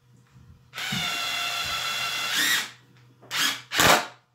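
Cordless impact driver's motor running for about two seconds, its pitch rising near the end, followed by two short bursts on the trigger.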